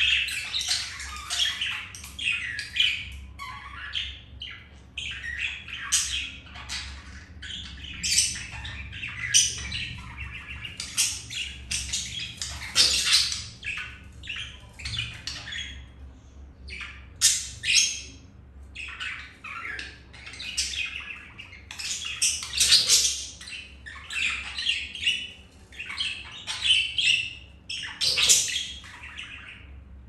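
Budgerigars chattering: a near-continuous stream of short chirps and squawks.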